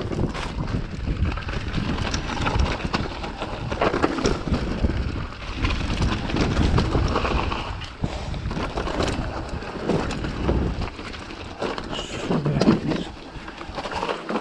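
Mountain bike descending a rocky trail: wind rushing over the camera microphone, with the tyres rolling over loose stones and the bike rattling in a constant run of clicks and knocks.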